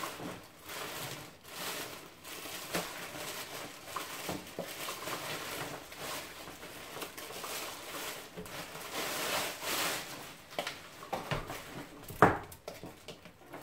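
Plastic packaging wrap rustling and crinkling as it is pulled off and handled, with scattered small clicks of vacuum parts. A single sharp knock sounds near the end.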